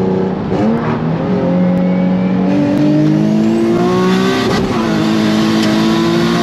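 Single-turbo Nissan 350Z's V6 engine on a hard pull, heard from inside the cabin: the note climbs steadily, drops with an upshift about four and a half seconds in, then climbs again.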